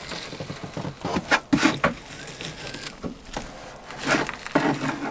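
A chisel scraping and chipping oil-soaked spray foam out from beside a steel tank in a boat's bilge, in irregular strokes.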